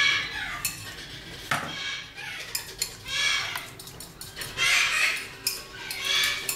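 Parrots squawking: a series of harsh, rasping calls, about one every second and a half, with a few sharp clicks between them.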